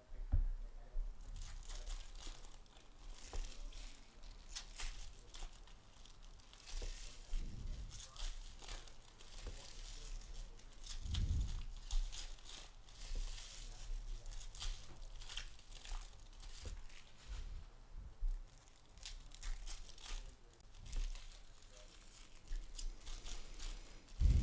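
Trading card pack wrappers being torn open and crinkled, with irregular sharp crackles throughout and cards shuffled in hand.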